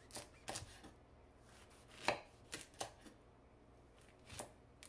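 Knife cutting a raw opo squash into finger-thick sticks: a handful of short, separate cuts at uneven intervals.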